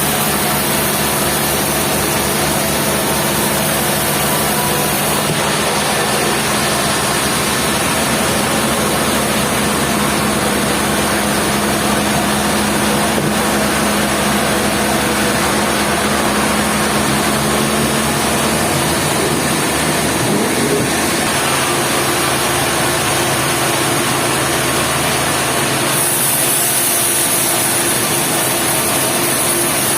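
Industrial sawmill machinery running steadily: a continuous, loud mechanical din with a steady hum beneath it. The sound changes character around two-thirds of the way through, and again near the end.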